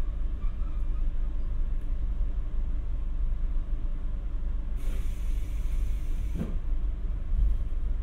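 Interior running sound of a JR Hokkaido 721 series electric multiple unit: a steady low rumble from the train, with a burst of air hiss lasting about a second and a half starting around five seconds in, ending in a short falling tone.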